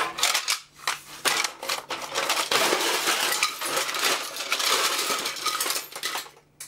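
Acetal plastic impellers, diffusers and washers from a multi-stage centrifugal pump clattering as they tumble loose onto a sheet-metal tray: a dense rattle of many small pieces that stops suddenly near the end.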